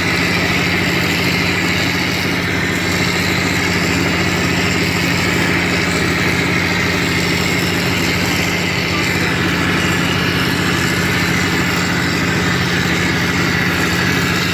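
Wall-plastering machine's motor running steadily, a constant mechanical hum.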